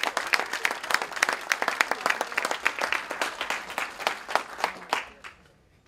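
A roomful of seated dinner guests applauding, the clapping thinning out and dying away near the end.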